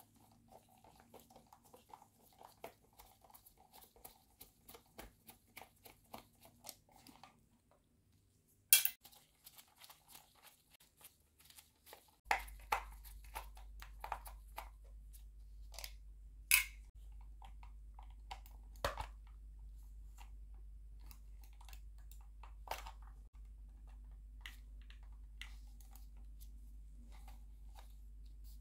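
Small precision screwdriver backing screws out of a Logitech Marble Mouse's plastic underside: quick faint clicks and ticks of the bit and screws, with a few louder plastic clacks as the mouse and tool are handled. A low steady hum comes in about twelve seconds in.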